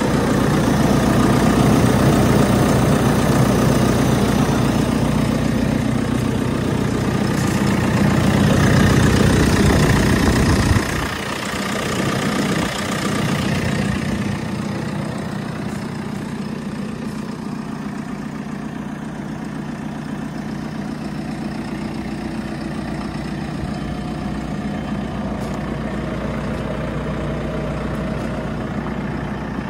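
JCB 4CX backhoe loader's diesel engine idling steadily. About eleven seconds in, the deep rumble drops off suddenly and the engine sounds quieter and thinner for the rest.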